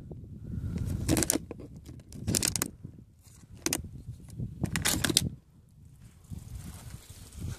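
Plastic water bottle packs crinkling and clicking in short bursts as they are handled and cut open, with wind rumbling on the microphone.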